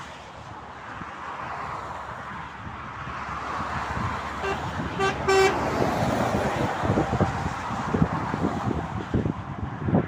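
Vehicle horn giving three quick short toots about halfway through, the last slightly longer, over the steady rush of passing highway traffic.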